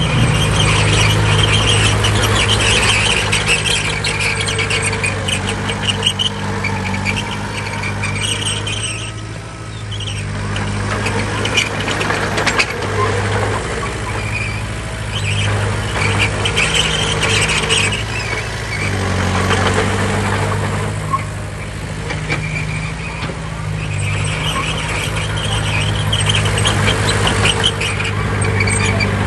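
Heavy diesel earthmoving machinery running under load, with a steady low engine drone and high-pitched squealing that comes and goes. The engine eases off briefly about nine seconds in and again about twenty seconds in.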